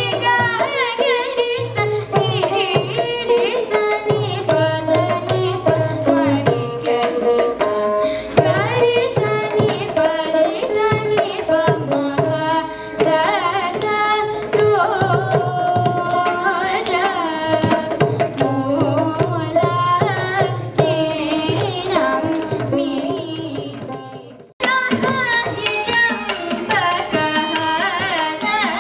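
Carnatic vocal singing by a young girl, accompanied by mridangam drum strokes and a veena. About 24 seconds in, the sound dips and cuts off abruptly. Another girl's Carnatic singing then begins, accompanied by mridangam and violin.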